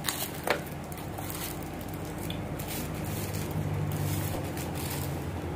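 Light handling noise of a smartphone being lifted out of its cardboard box in its protective wrap, with a couple of soft clicks in the first half second, over a steady low room hum.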